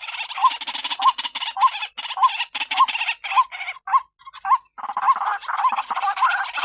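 White-breasted waterhen calling, the female's call used as a trapping lure: harsh croaking notes, each with a hooked tone, repeated about every half second. The calls break off briefly about four seconds in, then come back denser and faster.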